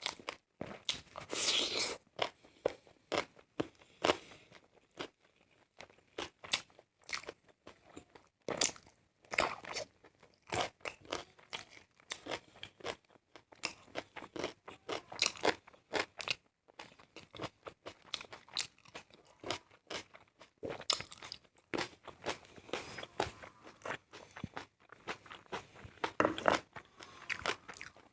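A person eating close to the microphone: irregular crunching bites and chewing, full of sharp crisp clicks, in several denser bursts of crunching.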